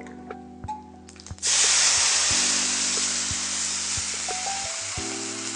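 Water poured into a kadai of hot tempering oil with mustard seeds and urad dal, setting off a sudden loud sizzling hiss about a second and a half in that slowly dies down.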